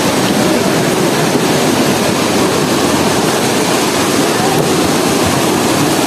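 Waterfall's falling water, a loud, steady rush, with faint voices of people in the background.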